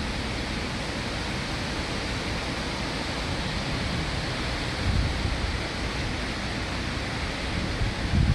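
Strong thunderstorm wind rushing steadily through trees and foliage, with low thumps of wind buffeting the microphone about five seconds in and again near the end.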